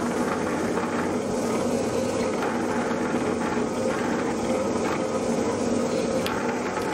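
Electric drill mounted in a drill stand, running steadily with a constant hum as its bit bores through a thin aluminium bracket.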